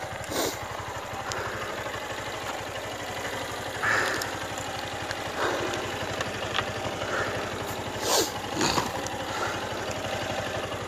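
Motorcycle engine idling steadily, left running, with a few brief knocks and rustles close by.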